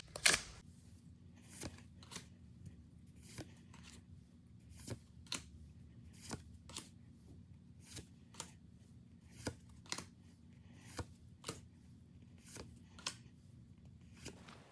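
Pokémon trading cards being slid one at a time through the hand, a soft swish or tick about every half second. A brief louder crinkle of the foil pack comes at the very start.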